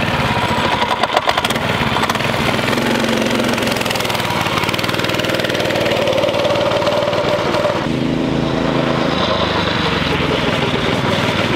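Predator 212 single-cylinder four-stroke engine of a homemade wooden go-kart running under throttle as the kart drives. The engine note shifts abruptly about eight seconds in.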